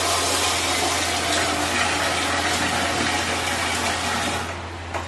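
Kitchen tap running water into a steel bowl of rice, filling it for soaking; the tap is shut off about four and a half seconds in, followed by a short click.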